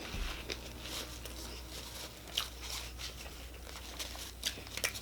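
Person eating close to the microphone: faint scattered clicks and crinkles over a steady low hum.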